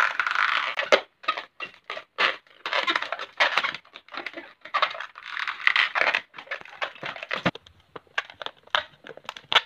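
Hands rubbing and twisting an inflated long latex modelling balloon, the rubber giving short, irregular rubbing and scrunching sounds, with one sharp click about seven and a half seconds in.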